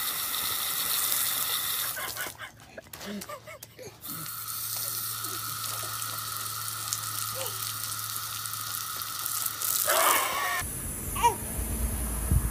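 Water spraying from a hose-fed toddler sprinkler toy and splashing onto pavement, a steady hiss that thins out about two seconds in and comes back. Near the end a short voice-like sound, then a different, lower background.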